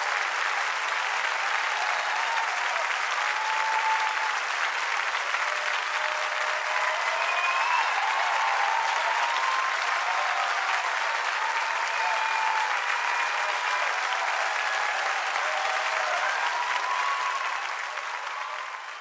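Sustained crowd applause, with a few voices calling out over it, fading out near the end.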